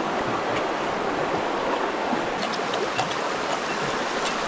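River water flowing steadily, an even, continuous rushing.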